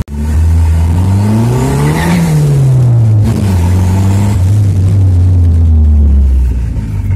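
Turbocharged car engine heard from inside the cabin while driving, revving up to a peak about two seconds in, then the revs falling away over the next two seconds and settling into a steady drone.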